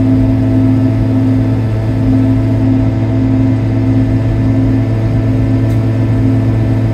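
Piaggio Ape 50's 50cc single-cylinder two-stroke engine droning steadily under way at a constant pace, with no change in revs.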